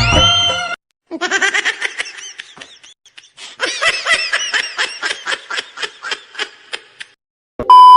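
Laughter in two bouts of quick, pitched ha-ha pulses, about four or five a second, after music cuts off just under a second in. A loud steady beep starts right at the end.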